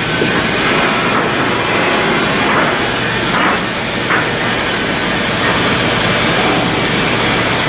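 Steady loud din of shipyard construction machinery, a continuous hiss and rumble, with a few brief higher scraping sounds near the middle.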